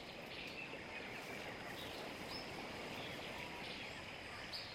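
Low, steady outdoor ambience: an even background hiss with faint, short bird chirps now and then.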